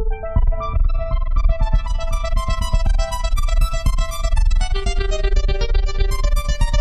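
Waldorf Quantum hybrid synthesizer playing a patch: a busy run of short, bright pitched notes over a fast pulsing bass, starting abruptly.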